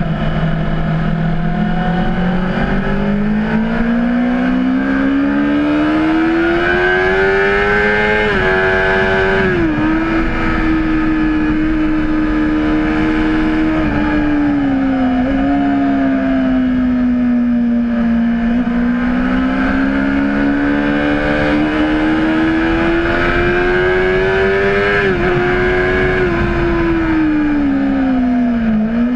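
Honda CBR600RR's inline-four engine under way on track. It revs up through the gears with quick upshifts, settles, and drops in pitch as the bike slows, then pulls up again and falls off near the end.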